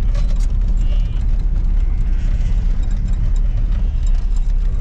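Farm vehicle driving, a steady low rumble of engine and tyres with faint scattered rattles.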